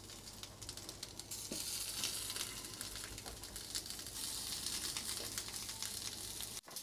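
Oil-coated tempeh slices sizzling faintly on a hot ridged griddle pan as they are laid in one by one, with a few light clicks of the tongs.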